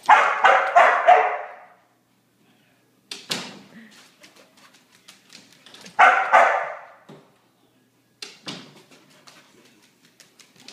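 Border collie barking in quick bursts: a rapid run of about four barks at the start and another short run of barks about six seconds in. In between comes a patter of quick clicks and a few light knocks from its claws and feet on a hardwood floor as it runs about.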